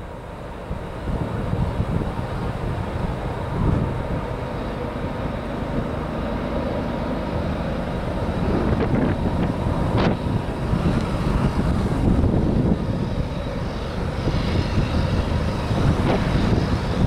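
Wind buffeting the microphone, with a low rumble that grows slowly louder.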